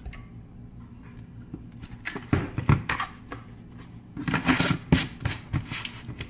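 Plastic clicking and rattling as a lid is handled and fitted back onto a protein powder tub, in two short bursts about a second apart.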